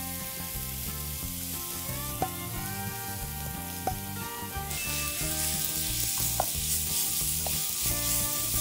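Shredded cabbage, carrot, mushroom and glass noodles sizzling as they are stir-fried in a pan. There are a few sharp clicks of a wooden spatula against the pan, and the sizzle grows louder about halfway through, once soy sauce is poured in.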